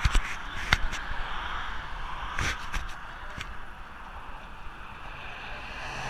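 Steady rush of wind across the camera microphone, with several sharp knocks in the first three seconds or so.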